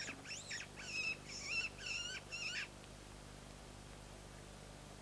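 A rapid run of high-pitched, squeaky squealing calls, each one bending up and down in pitch, stopping about two and a half seconds in.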